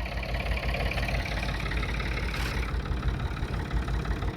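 Engine of the vehicle towing the truck, running steadily at idle with an even low chugging. A short hiss comes about two and a half seconds in.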